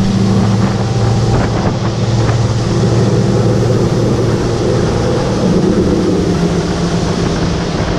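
Boat's outboard motor running steadily with the boat underway at speed, a constant low hum under wind buffeting the microphone.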